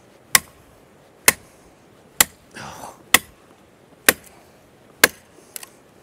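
Zippo 4-in-1 survival tool's hatchet chopping into a dry, fire-killed standing tree: six sharp strikes, about one a second.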